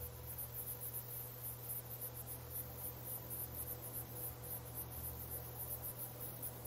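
Faint chirping of insects in a quick, even rhythm, over a low steady hum.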